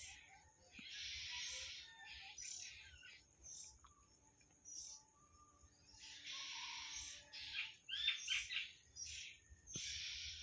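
Small birds chirping and chattering in repeated bursts, with a quick run of sharp chirps about eight seconds in, over a steady high hiss.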